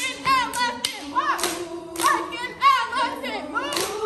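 Step team stepping in unison: sharp claps and stomps in an uneven rhythm, a few each second, with the group chanting and yelling calls over them in a hall.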